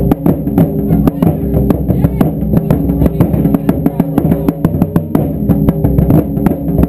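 Taiko drum ensemble playing a steady, driving beat, with many drums struck together in a rapid, unbroken rhythm.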